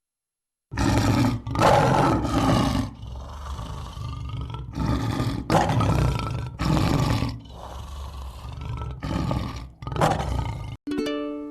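Lion roaring: a long run of roars, the loudest at the start, weaker ones following. Near the end a single plucked musical note rings out and fades.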